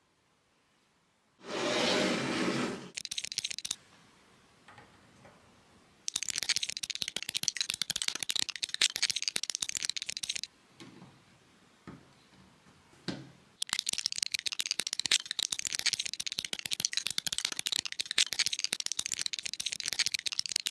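LEGO bricks rattling and clicking together in long runs of dense clatter, with a short loud burst of noise near the start and a few single knocks between the runs.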